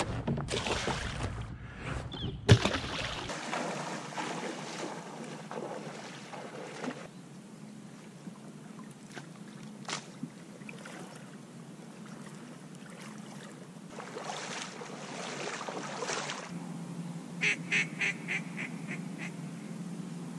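Water and kayak handling noise with one sharp knock about two and a half seconds in. Near the end comes a quick run of about six short goose honks.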